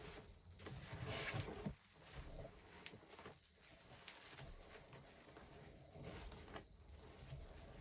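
Faint wet squishing and swishing of hands working a soapy sponge and swirling thick foamy paste in a tray. It is loudest about a second in.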